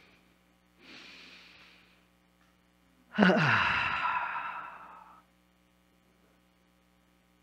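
A deep breath taken on cue: a soft, faint inhale, then about three seconds in a loud voiced sigh out, falling in pitch and fading over about two seconds.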